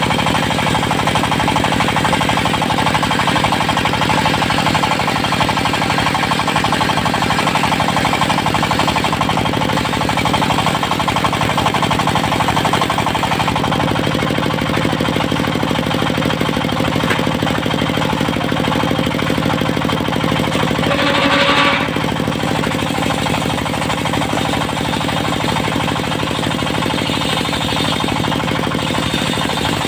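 Engine driving a portable circular sawmill, running steadily with a rapid knocking clatter. Its note shifts slightly about 13 seconds in, and a brief louder burst comes about 21 seconds in.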